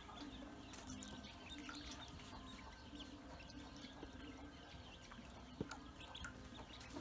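Ducklings paddling and dabbling in shallow water in a metal basin: faint small splashes and drips, with a few sharper ticks near the end.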